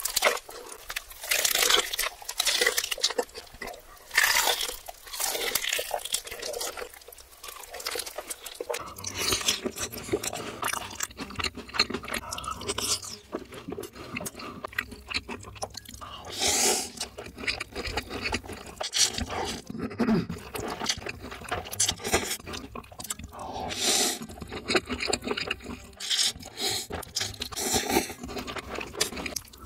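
Close-miked crunching bites and chewing of crispy sauced fried chicken. Sharp, crackly crunches come thickest in the first nine seconds or so, then chewing carries on over a low steady hum.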